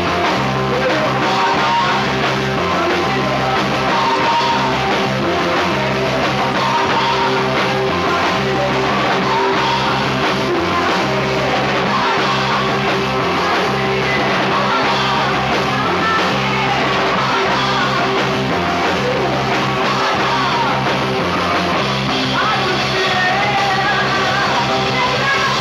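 Rock band playing live, with electric guitars, bass and drums, and a woman singing lead.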